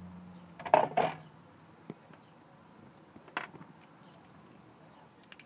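Handling noise from hands working at the stair lift's batteries and wiring: a cluster of sharp clicks and knocks about a second in, then single knocks near two, three and a half and five seconds. A low hum fades out as the first clicks come.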